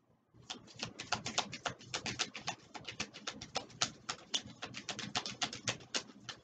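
A deck of oracle cards being shuffled by hand: quick papery flaps and clicks of the cards, about eight a second, starting about half a second in.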